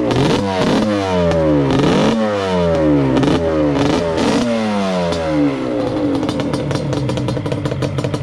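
Yamaha Banshee 350 twin two-stroke ATV engine with DMC Alien expansion-chamber pipes, blipped up to revs several times in quick succession, each rev falling back, then settling into a steady idle about five and a half seconds in. Pretty loud.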